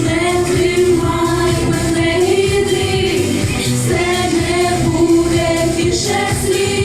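Vocal group singing a pop song with long held notes over an instrumental backing track with a steady beat.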